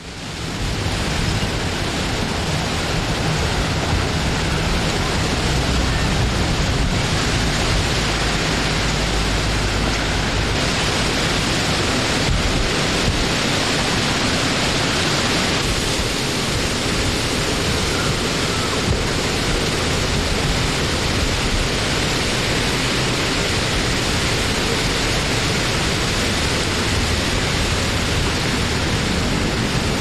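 Wind blowing as a dense, steady rush with no gusting breaks, its higher hiss swelling and easing slowly. It fades in over about the first second.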